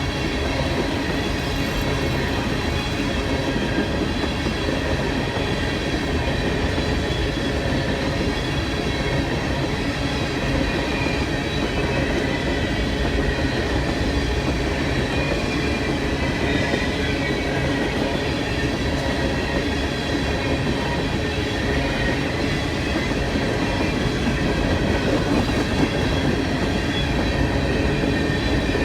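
Freight train cars rolling past, steel wheels rumbling on the rails with a steady, high-pitched squeal of wheel flanges.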